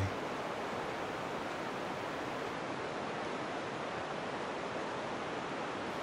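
River water rushing over rocks in a steady, even wash of noise.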